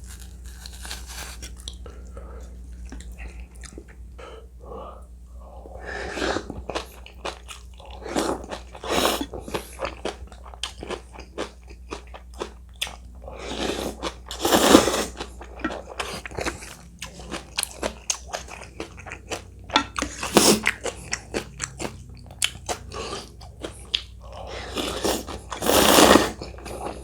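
Close-miked eating of ramen with dumplings and crunchy kimchi: wet chewing and crunching with many small clicks, broken by a few louder, second-long noisy bursts.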